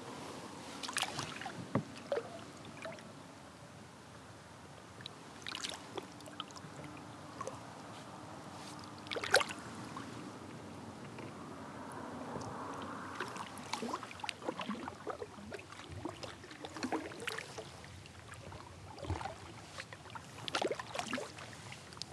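Small splashes, drips and knocks of water and gear around a fishing kayak as a northern pike is slipped back into the river, with one sharp knock about nine seconds in, then paddle strokes near the end.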